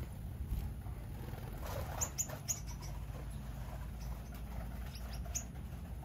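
Small aviary birds giving short, high chirps in quick clusters, about two seconds in and again near five seconds, over a steady low rumble.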